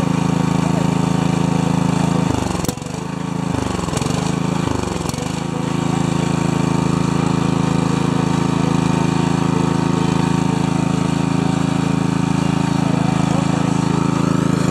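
Ariens lawn tractor's Kohler 20 hp engine running steadily. About two seconds in, its speed drops sharply three times in quick succession, picking back up each time, with a couple of clicks, then it settles back to an even run.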